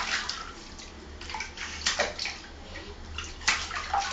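Water splashing in a small plastic baby bath as a baby slaps the surface with her hands, in irregular bursts of splashes.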